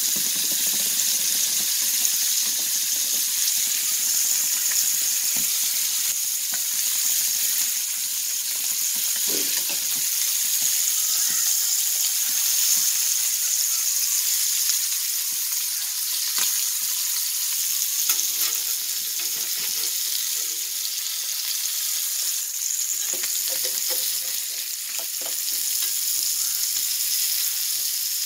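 Masala-coated sardines frying in a little coconut oil in a cast-iron tawa: a steady high sizzle with scattered small crackles and pops.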